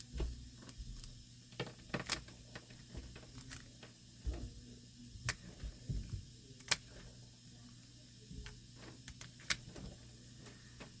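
Lock pick working in a Brinks padlock's keyway: scattered light clicks and scrapes at irregular intervals as the pins are raked, with a few soft knocks of the lock being handled.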